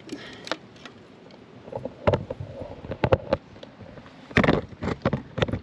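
Irregular scuffs and knocks of someone climbing down over rock with a handheld camera, the camera being handled close to the microphone, with a louder cluster of rustles and bumps near the end.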